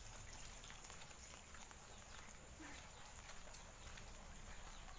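Faint outdoor ambience of a rain-wet lane: scattered soft drips and taps over a quiet hiss, a steady faint high-pitched tone, and one short faint animal call about two and a half seconds in.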